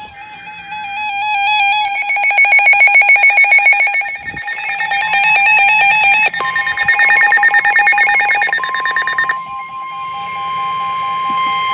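Several NOAA weather radios alarming at once for an incoming severe thunderstorm warning. Their electronic alert beeps pulse rapidly and overlap. About halfway through, a steady alert tone near 1 kHz starts, and a second copy of it joins a couple of seconds later.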